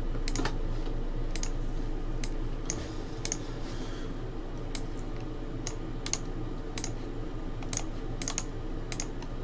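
Computer keyboard being typed on: single sharp keystrokes, irregular, about two a second, over a steady low room hum.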